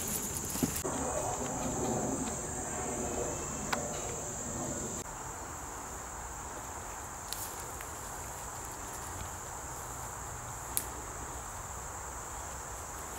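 Steady, unbroken high-pitched buzz of an insect chorus, with a few faint sharp clicks.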